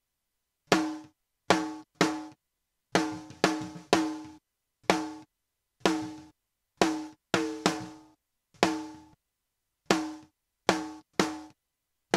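A snare drum recorded with two microphones, the second mic's track slightly delayed, plays about seventeen single strikes in an uneven rhythm, each ringing briefly. The delay between the two mics gives the hits a comb-filtered tone from phase cancellation. As the second mic's track is turned down, the comb filtering lessens.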